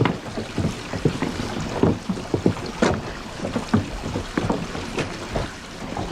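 Water-powered sawmill machinery at work: irregular wooden knocks and clatter, two to four a second, over a steady wash of running water.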